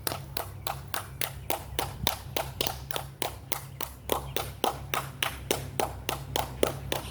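Hands clapping in a fast, steady run, about four or five claps a second, each clap reverberating off the stone Mayan temple.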